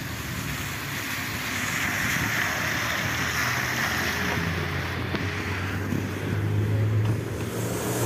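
A BKM 32100D trolleybus pulling in to the stop on wet asphalt: tyre hiss swells as it arrives and fades as it comes to a halt, over a steady low hum.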